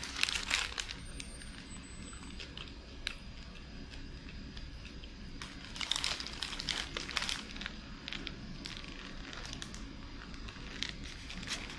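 Paper wrapper of a Burger King Whopper crinkling and rustling in the hands in two bursts, one just after the start and another around six seconds in, with scattered small ticks and chewing between.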